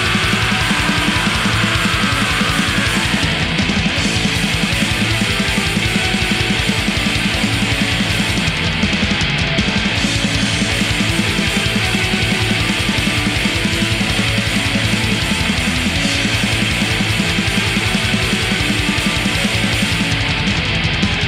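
Black metal recording: distorted guitars over very fast, steady drumming, loud and unbroken.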